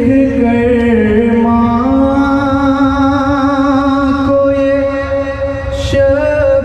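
Male voice reciting a noha, a Shia mourning lament, holding one long drawn-out note that dips and rises slightly in pitch, with a short hiss near the end.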